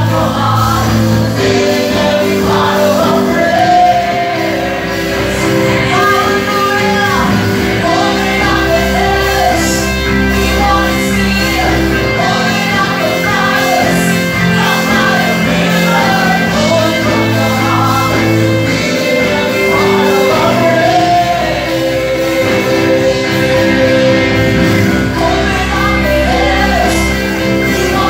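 Live contemporary worship song: several women singing together into microphones over a band of drums and electric guitar, amplified through a PA.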